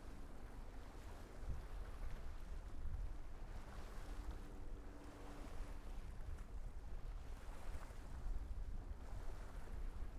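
Gusty wind buffeting a fur-windscreened field recorder's microphone, an unsteady low rumble, over the wash of waves that swells and fades. A faint steady hum comes in about four seconds in and fades about a second later.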